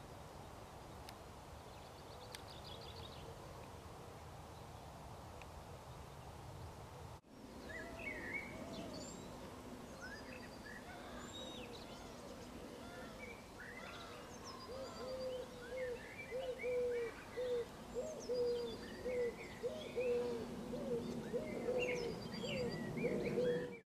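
Outdoor birdsong: steady low background noise at first, then, after a cut, several small birds chirping and singing. From about halfway through a low cooing is repeated over and over and becomes the loudest sound, like a pigeon's call.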